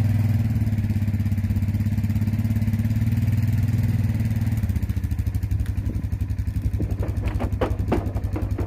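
Four-wheeler engine running under load as it drags a log up a ramp by a chain. About halfway through the engine note drops to a slower, pulsing idle, and several short knocks follow near the end.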